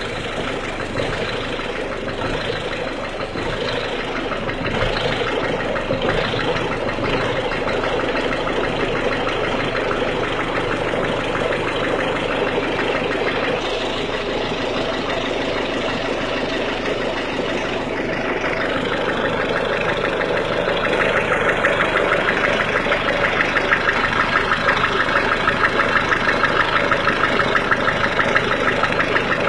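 1.6 HDi diesel engine idling with a knocking clatter, the cold-engine knock (claquement à froid) that the video sets out to diagnose. About two-thirds of the way in it gets louder, with a fast, even clatter.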